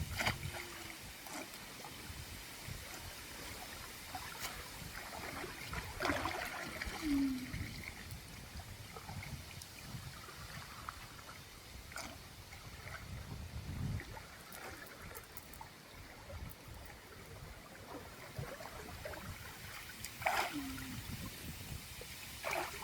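Water trickling and gurgling, broken now and then by short splashes or knocks.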